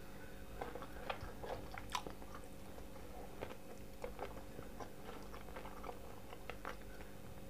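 Close-miked chewing: a person eating with the mouth closed, with faint, irregular small wet clicks and crunches.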